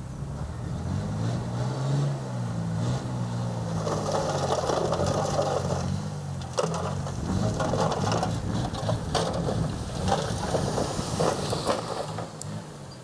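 Bulldozer diesel engine working under load, its pitch rising and dipping, while soil and stones crunch and crackle for most of the stretch as they are pushed.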